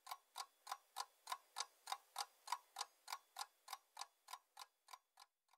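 Ticking clock sound effect, about three even ticks a second, growing louder and then fading away near the end. It counts off time for guessing the quiz answer.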